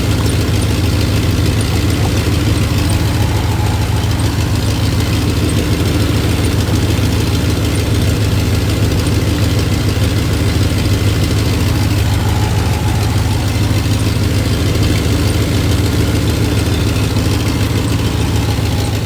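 Dodge 5.9 (360) Magnum V8 idling steadily at operating temperature, its thermostat just opened. An exhaust noise runs under it, from an exhaust-side opening left uncapped after the EGR was blocked off; apart from that the engine sounds healthy.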